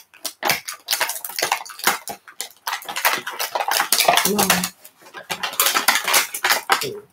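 Hard plastic packaging crackling, with quick irregular clicks and snaps, as Bakugan toys are worked free of their packaging by hand.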